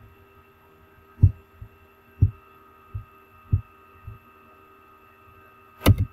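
Computer handling noise: a series of dull low thumps, then one sharp click near the end as the slide advances, over a steady faint electrical hum.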